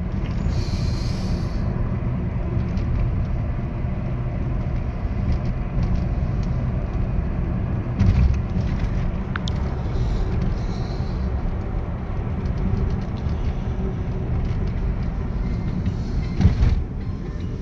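Steady road and engine rumble heard inside a moving car's cabin, with two brief thumps, about eight seconds in and near the end.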